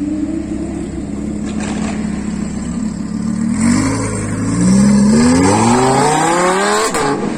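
Lamborghini Huracán's 5.2-litre V10 idling steadily, then revving hard as the car pulls away about three and a half seconds in. The pitch climbs in three rising sweeps, dropping back between them as it shifts up.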